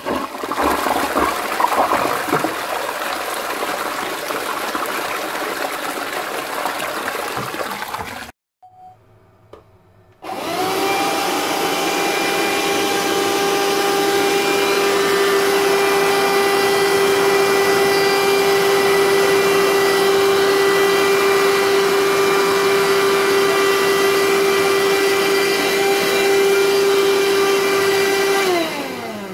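A toilet flushing for about eight seconds, cut off abruptly. After a short pause a Bosch BKS4043 cordless 14.4 V handheld wet-and-dry vacuum is switched on and runs steadily with a high motor whine, then is switched off near the end and winds down, its pitch falling.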